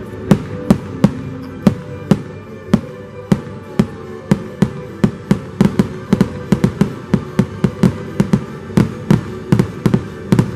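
Fireworks shells bursting in a long, irregular string of sharp bangs, a few each second and coming thicker toward the end, over the show's holiday music.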